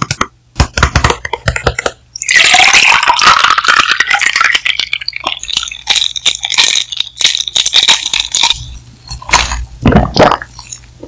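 Iced milk tea being sipped through a plastic straw: a long, noisy slurp of about six seconds starting about two seconds in, with scattered clicks and clinks of ice before and after it.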